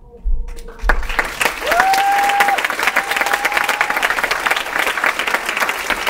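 Theatre audience applauding as the music ends. The clapping starts about a second in, with a whistle from the crowd, rising then held, twice over the applause.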